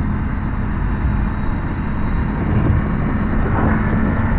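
Triumph Tiger 900's three-cylinder engine running steadily under way, mixed with wind and road noise.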